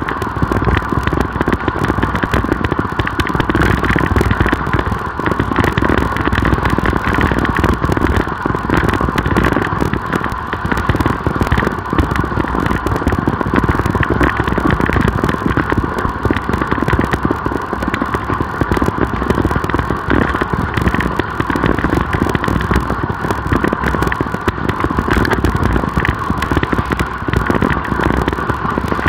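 Steady wind and road noise picked up by a camera riding on a road bicycle in motion, with constant rattling clatter.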